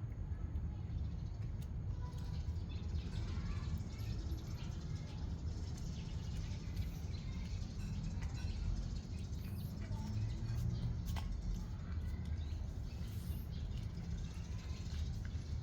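Faint bird chirps over a steady low rumble, with scattered small clicks.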